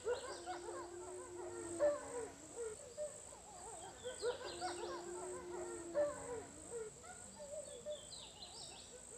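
A pack of wolves howling and yipping together in chorus, long held howls under many wavering yips, over a steady high insect-like trill. The same stretch of chorus repeats about every four seconds.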